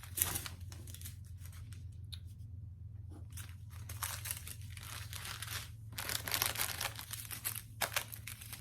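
Small plastic bags of diamond-painting drills being handled and crinkled, in irregular rustles that are busiest in the middle stretch.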